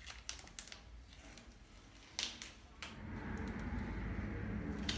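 Masking tape and a paper stencil being peeled off a painted metal tank: short tearing and crinkling rustles, with one louder rip a little after two seconds. A steady low hum comes in about three seconds in.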